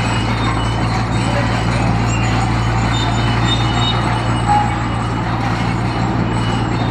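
Heavy diesel engine of a construction machine running steadily under load, with a constant low drone.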